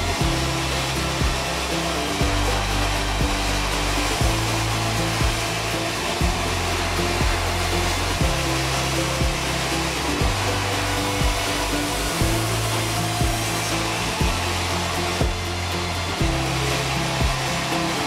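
Sawmill band saw running steadily as boards are fed through it, under background music with a steady beat.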